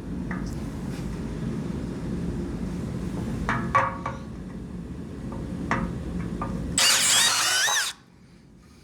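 Power drill running steadily as it bores a pilot hole in a plastic jerry can, with a few sharp knocks. Near the end comes a loud, high squeal with gliding pitch for about a second, then it stops suddenly.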